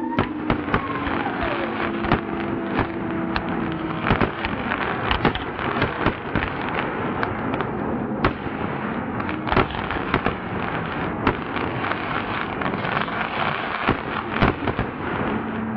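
Aerial fireworks display: a dense, continuous crackle of bursting shells punctuated by many sharp bangs, with a falling whistle in the first few seconds.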